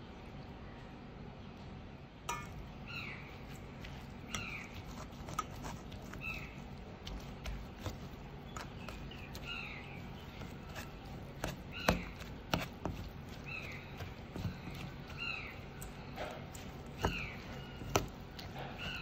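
A metal spoon clinks and scrapes against a stainless steel bowl while tossing shredded mango salad; the sharp clinks are the loudest sounds. Behind it a bird calls over and over, a short falling note about once a second.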